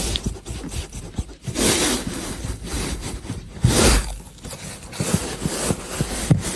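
Irregular scraping and rubbing noises, a run of rough swishes with a few soft knocks.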